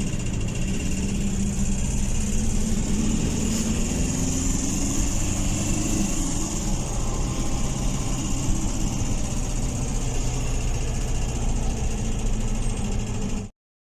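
Ford Ranger's 2.5-litre WL diesel engine idling with a knock whose cause is still being sought. It cuts off abruptly near the end.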